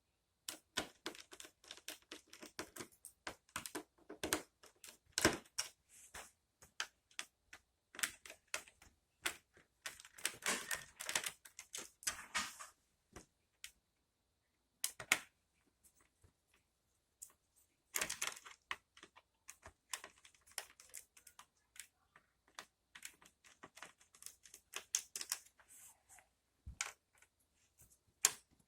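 Small screwdriver clicking and scraping as screws are backed out of the Acer Aspire E5 laptop's bottom case: irregular sharp ticks with a few short rasping stretches and a lull past the middle.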